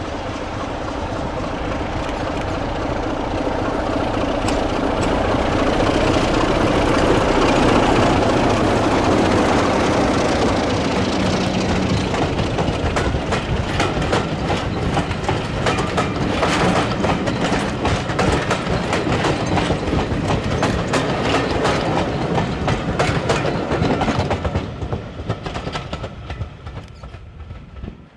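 Class 33 diesel locomotive hauling a passenger train past, its Sulzer engine growing louder as it approaches and passes. The coaches' wheels then clatter over the rail joints in a steady rhythm, fading away near the end.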